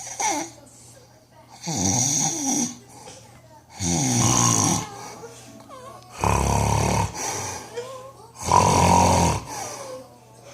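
A man snoring loudly in regular breaths, four snores about two and a half seconds apart, each lasting about a second.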